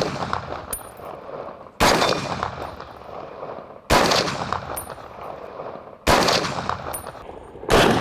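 An M1A, the civilian semi-automatic M14-pattern rifle in .308, firing five single shots about two seconds apart. Each shot has a long echo off the surrounding hills, and a faint high ping follows about a second after each.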